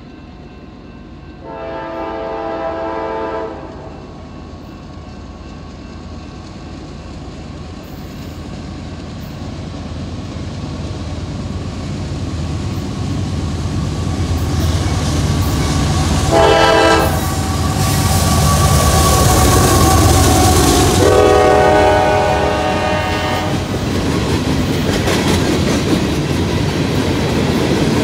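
CSX coal train's diesel locomotive approaching, its rumble growing steadily louder as its horn sounds three times: a long blast, then a short one, then a longer one. Near the end the train passes close, with wheels clattering over the rail joints.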